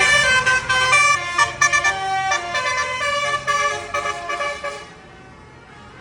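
A bus's telolet basuri musical horn playing a quick tune of changing notes, stopping abruptly about five seconds in and leaving a quieter steady background.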